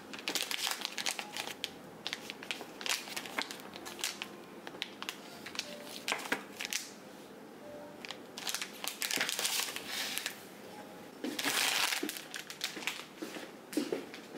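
Plastic zip pouches crinkling and rustling as they are handled and filled with small plaster aroma stones, in irregular bursts, with a longer crinkle about eleven seconds in.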